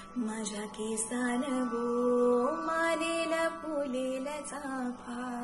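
A woman's solo singing voice in a Marathi Koli folk song (koligeet), holding long notes that slide and waver between pitches, with one long held note that steps up higher about halfway through.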